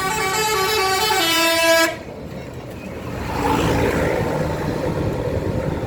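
Bus's multi-tone "telolet" basuri horn playing a tune of stepped notes, cutting off suddenly about two seconds in. Then engine and road noise from passing traffic, louder after about three seconds.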